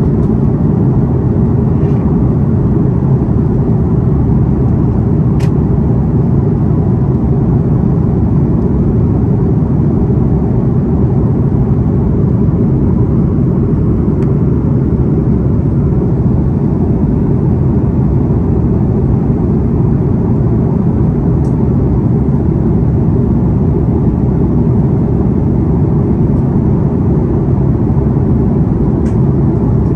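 Steady cabin noise inside an Airbus A330 airliner: a constant low rumble of engines and airflow, with a few faint clicks.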